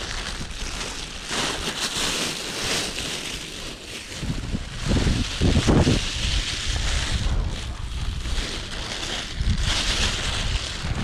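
A thin plastic bag rustling and crinkling in bursts as it is handled and filled, with wind buffeting the microphone in low gusts, strongest about halfway through and again near the end.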